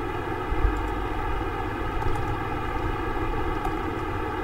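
Steady background noise with a faint hum, and a brief low thump about half a second in.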